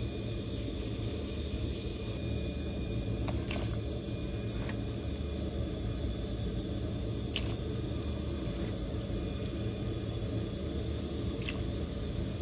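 Pot of soup broth at a rolling boil on a stove burner: a steady low rumble with a few faint ticks.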